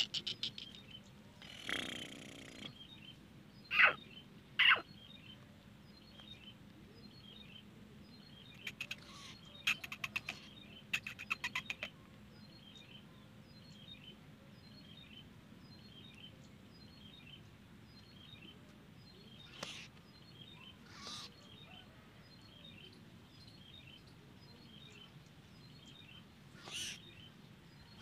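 Caged black francolin calling: a few loud, harsh notes, then a quick rattling run of clicking notes, with scattered calls later. Faint high chirps repeat steadily underneath.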